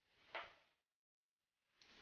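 Near silence, broken once by a single short click about a third of a second in.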